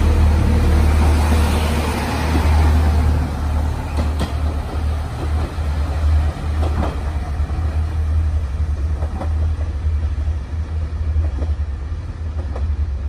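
JR Shikoku KiHa 185 series diesel railcars pulling away under power. The engine sound fades steadily as the train recedes, with a few sharp clicks of wheels over rail joints.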